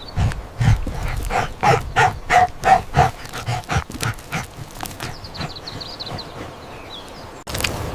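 A series of short animal calls, about ten of them at roughly two to three a second, fading out about halfway through.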